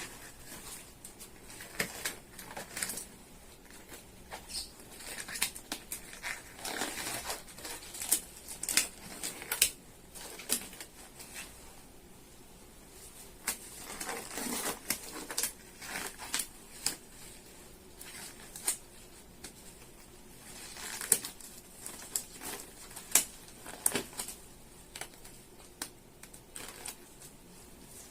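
Irregular rustling and crinkling, with scattered light clicks and taps: handling noises.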